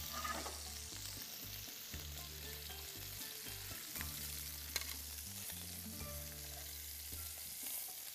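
Meat frying in hot oil in a pan: a steady sizzle with crackling, and a few light clicks.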